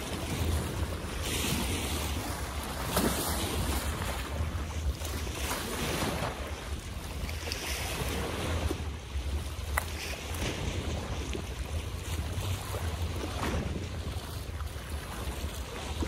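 Water splashing in small waves, swelling and easing every few seconds, over a steady low rumble of wind on the microphone.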